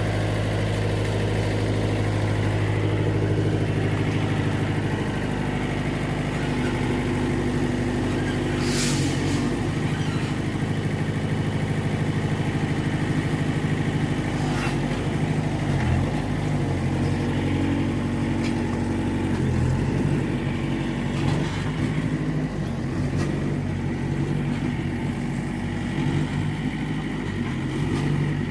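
Diesel engine of a Mitsubishi MS-series backhoe running, its note shifting up and down several times. Two sharp clanks about 9 and 15 seconds in.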